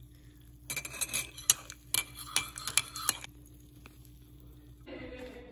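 A spoon stirring tea in a mug, clinking and scraping against the sides for about two and a half seconds, starting just under a second in, as milk is stirred in.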